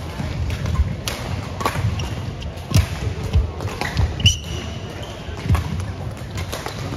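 Badminton play in a large indoor hall: sharp racket strokes on the shuttlecock and players' feet thudding on the court floor, with one short high squeak about four seconds in.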